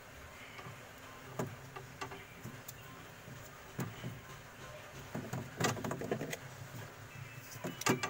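Handling noise from wires and small plastic parts being worked by hand: scattered light clicks and rustles, with a busier bunch of rustling about five and a half seconds in and another near the end.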